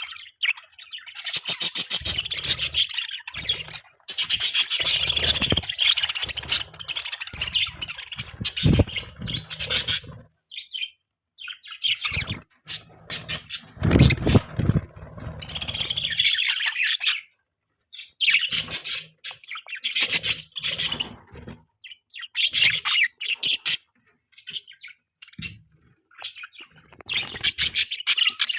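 Budgerigars chirping and chattering in bursts of rapid high chirps with short pauses between, and some low bumps mixed in about halfway through.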